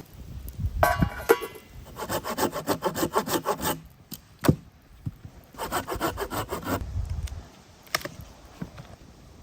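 Hand saw cutting through wood in two quick bouts of rapid back-and-forth strokes, with a single sharp knock between them.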